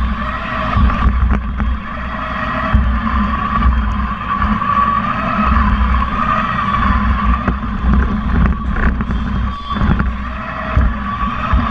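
A small competition robot's electric drive motors whirring, with its frame rumbling and rattling under a camera mounted on the robot as it drives across the arena floor.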